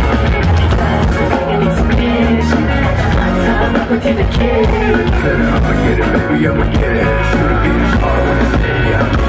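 A band playing live, with bass guitar and a male voice singing into a microphone over a steady pop-rock backing.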